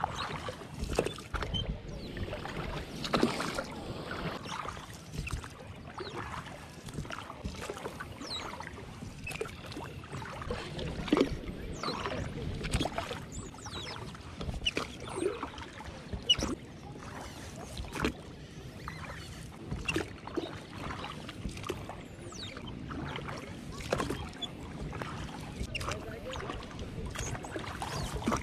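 Oars of a small inflatable pontoon boat rowing through lake water: irregular splashes and knocks from the strokes, with a steady low wash of water under them.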